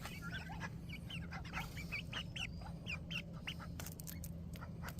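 Ducks quacking, many short calls in quick succession, as they are fed. A steady low hum runs underneath.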